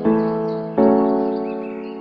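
Background music: sustained keyboard chords, a new chord struck at the start and another about three-quarters of a second in, each slowly fading.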